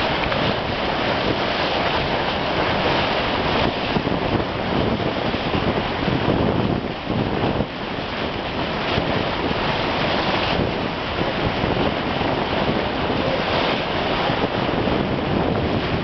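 Bow wave rushing and splashing along the hull of a moving boat, with wind buffeting the microphone.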